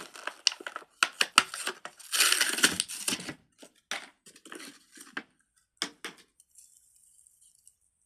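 Plastic packaging crinkling and tearing as a fidget toy is unwrapped, with a longer tearing rustle about two seconds in and scattered crackles after it, dying away after about six seconds.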